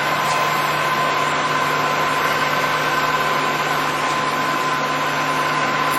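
Polamco TUG-40 gap lathe running steadily: a constant mechanical hiss with a steady whine held at a few fixed pitches.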